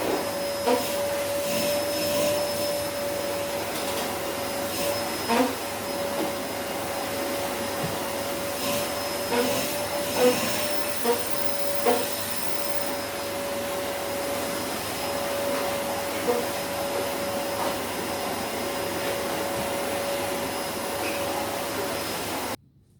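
Vacuum cleaner running steadily, a whine over a rushing hiss, with scattered clicks and knocks; it stops abruptly near the end.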